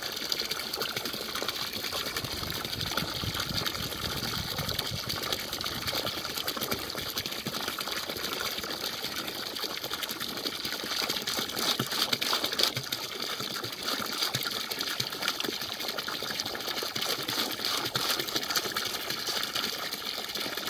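Water pouring from a hose into a half-full plastic tub, a steady gushing splash.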